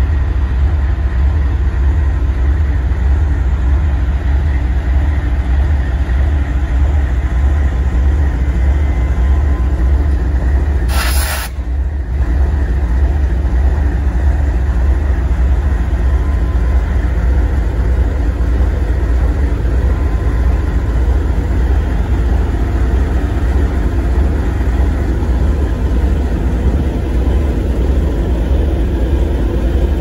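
Freight train rolling past: a loud, steady low rumble of locomotives and railcars, with a brief hiss about eleven seconds in.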